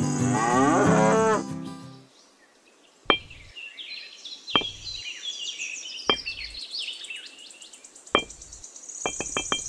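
Four separate sharp little knocks, about a second and a half apart, as miniature clay bricks are set down one at a time, over birds chirping. Music with sliding tones fades out in the first two seconds, and a quick even run of ticks starts near the end.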